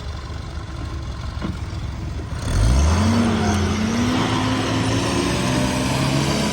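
Ford GPW jeep's four-cylinder flathead engine rumbling low, then about two and a half seconds in it revs up sharply and holds at higher revs, its pitch wavering slightly.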